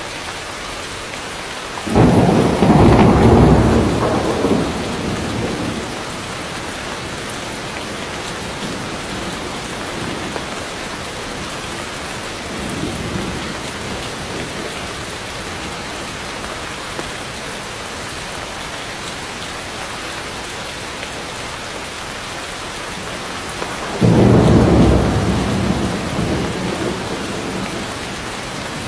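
Heavy rain falling steadily on forest foliage, with thunder rumbling: a loud roll about two seconds in, a fainter one in the middle, and another loud roll near the end, each fading over a few seconds.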